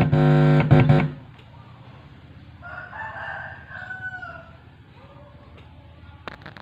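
Loud low buzz from an amplifier's speaker as a finger touches its input, cutting off about a second in; the buzz shows the amplifier is working. A rooster crows once in the background about three seconds in, and a click comes near the end.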